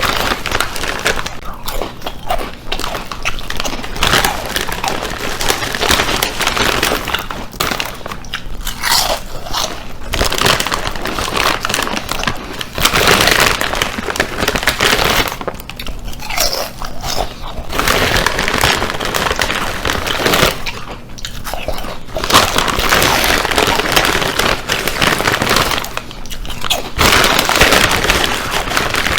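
Chips being bitten and chewed: loud, dense crunching that comes in bouts with brief pauses between them.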